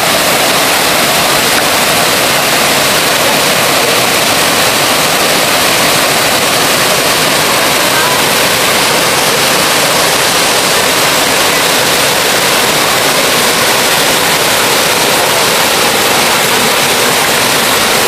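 Waterfall pouring into a pool: a loud, steady rush of falling water.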